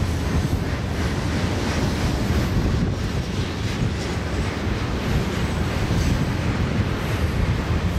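Freight cars of a Union Pacific mixed freight train rolling past, steel wheels on rail making a steady rolling noise, with wind buffeting the microphone.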